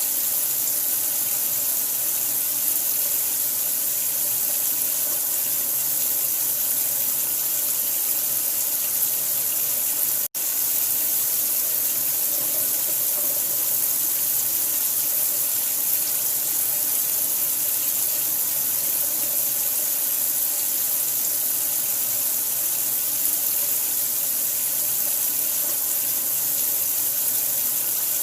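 Running water, a steady even rush heavy in hiss, used as a sleep sound for newborns. It cuts out for an instant about ten seconds in, then resumes unchanged.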